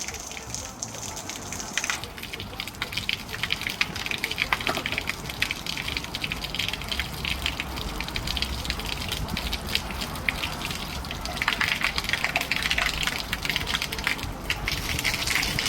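Water gushing and spraying from leaking pipework, with scattered clicks and knocks throughout.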